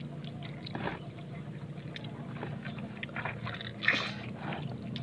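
Wet squelching and crackling of raw blue marlin flesh as hands pull and tear at the cut behind the head, with one louder crackle about four seconds in. A steady low motor hum runs underneath.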